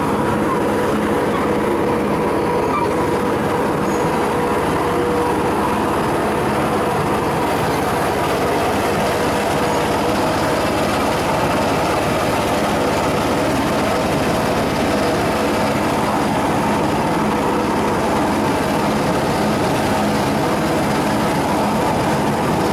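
Miniature park railway running along its track, heard from aboard: a steady, even rolling rumble with a faint steady hum.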